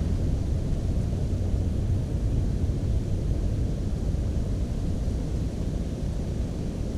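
Steady low wind rumble buffeting the microphone, with no distinct bird song standing out.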